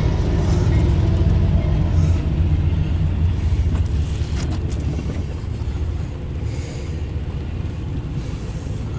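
CSX intermodal freight train rolling past with a steady low rumble of wheels on rail. A few sharp clicks come about four to five seconds in, and the rumble eases a little after about six seconds.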